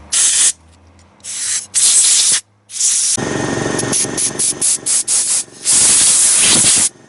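Short bursts of pressurized spray hissing into a dirt-bike carburetor's jets and passages to clear them out, the carburetor having a clogged main jet. There are many brief blasts, then a longer one of over a second near the end.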